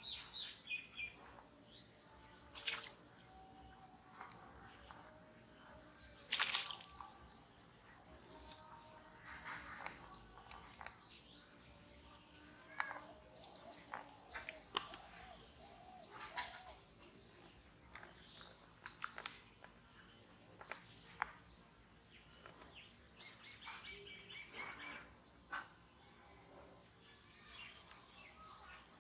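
Scattered bird chirps and calls, with a few sharp clicks, the loudest about six seconds in, and a faint steady high hum.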